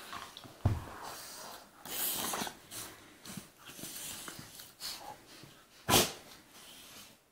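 A golden retriever and a Labrador puppy playfighting at close range: irregular scuffling, huffing and mouthing noises from the two dogs. There is a sudden knock just under a second in and a short, sharp, loud noise about six seconds in, the loudest moment.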